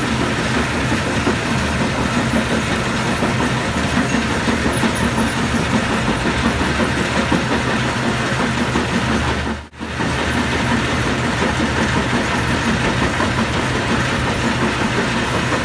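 Stone crusher running: a loud, steady mechanical din of rumbling and rattling as rock is broken down. The noise drops out for a moment about two-thirds of the way through, then continues.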